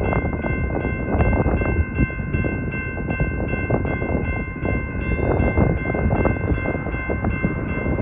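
Railroad grade-crossing warning bell ringing steadily at about two and a half strikes a second, over the low rumble and clatter of a passing train.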